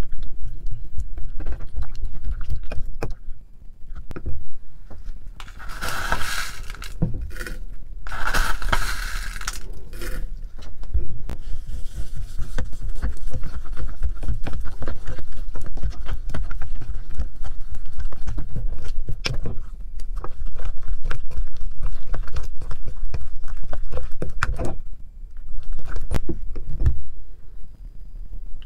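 Plastic spoon stirring and scraping a gritty sugar-and-water mixture in a small glass bowl, close up, with many small clicks of the spoon against the glass. There are two louder gritty spells early on, then a long stretch of steady scraping.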